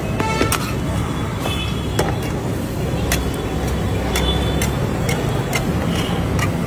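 Flat metal spatula clicking and scraping against a wide iron pan as a large omelette is cut into squares and pressed, in irregular sharp taps over a steady rumble of street traffic.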